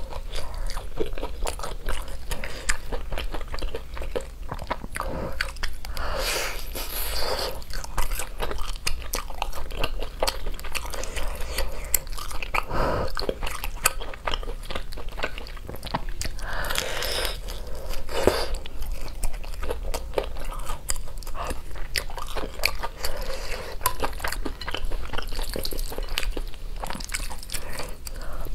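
Close-miked crunchy bites and chewing of a breaded, deep-fried chicken cutlet, a dense run of crisp crackles with a few louder crunches along the way.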